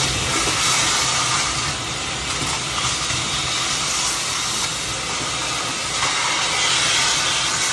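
A steady, loud hissing rush of noise that swells slightly now and then.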